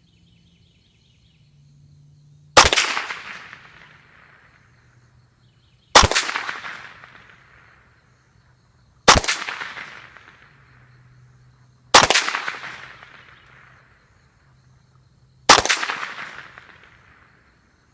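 Ruger 10/22 Takedown .22 LR rifle firing five single shots, about one every three seconds, each sharp crack trailing off over a second or so.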